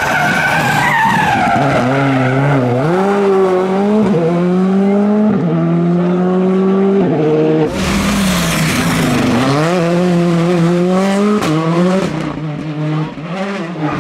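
Rally car engines at full throttle: each revs up, its pitch climbing and then dropping sharply at every gear change, with tyre squeal as the cars slide through bends. About halfway through, a different car takes over with a sudden rush of noise.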